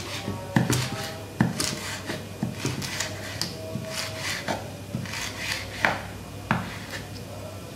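Chef's knife slicing kaffir lime leaves on a wooden cutting board: irregular knocks of the blade striking the board, with short scraping swishes between them.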